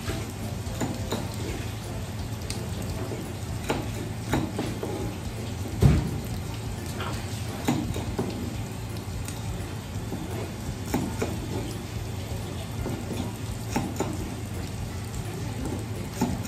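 Fish-preparation work at a wet workbench: irregular clicks and knocks of handling and cutting, over a steady hiss and low hum, with one louder thump about six seconds in.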